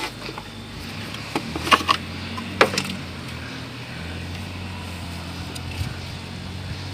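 A few sharp plastic-and-metal clicks and knocks of hands working at a car, about one and a half to three seconds in, over a steady low hum.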